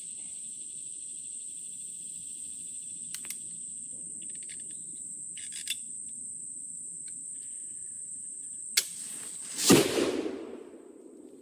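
Flintlock dueling pistol (.45 Pedersoli Continental) snapping its lock with a sharp click, then discharging just under a second later with a loud bang that dies away over about a second. This is a delayed ignition after repeated failures to fire in humid conditions. A steady high buzz of insects runs underneath.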